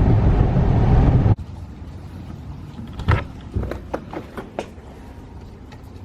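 Car on the move: steady road and engine noise that cuts off abruptly after about a second. It is followed by a much quieter stretch with a handful of light clicks and knocks.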